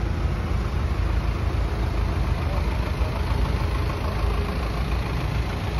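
Flatbed tow truck's engine idling, a steady low rumble.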